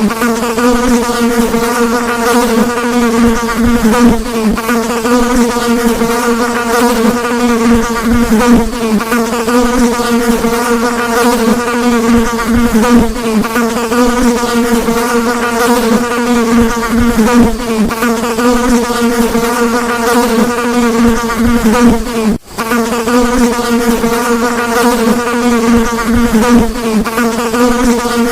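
Housefly buzzing in flight: a continuous buzz whose pitch wavers slightly, broken once by a split-second gap about twenty-two seconds in.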